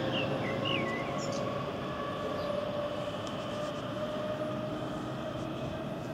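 Berlin S-Bahn class 480 electric train pulling away: a steady electric whine from its traction motors, creeping slightly up in pitch, over the rumble of wheels on rails. It fades a little as the train moves off.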